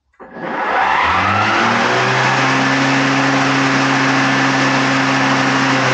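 Greenworks 80V 25-inch battery lawn mower's electric motor and blade spinning up with a rising whine over about the first two seconds, then running steadily at full speed with a loud hum and whoosh. The pitch starts to drop right at the end as it begins to wind down.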